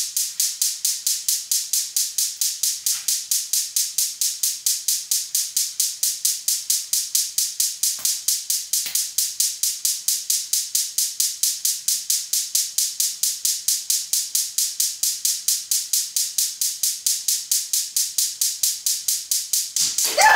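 Gas range's spark igniter clicking rapidly and evenly, about five clicks a second, without the burner catching, then stopping near the end: the burner is slow to light.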